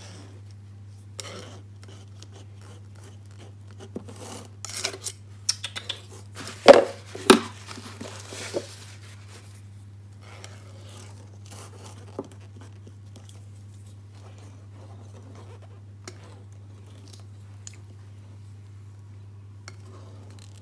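Kitchen utensils and cookware being handled: scattered clinks and rustles, with a busy stretch of clatter and two loud knocks about seven seconds in, over a steady low hum.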